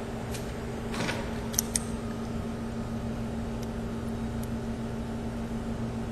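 A steady low mechanical hum, with a few faint clicks and taps about one to two seconds in.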